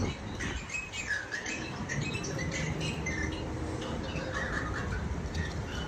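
Scattered short, high chirping calls over a steady low rumble.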